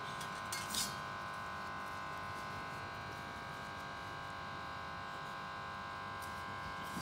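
A steady electrical buzzing hum made of several fixed high tones, with a few faint, soft scrapes of hands mixing chopped potato, onion and chillies into dry gram flour in a steel bowl.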